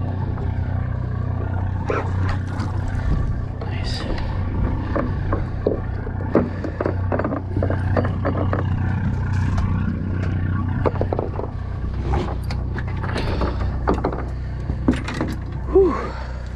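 A fishing boat's engine running with a steady low hum, under scattered clicks and knocks on deck.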